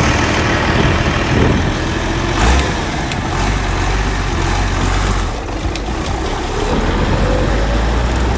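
Massey Ferguson 1130 tractor's diesel engine running steadily and loudly.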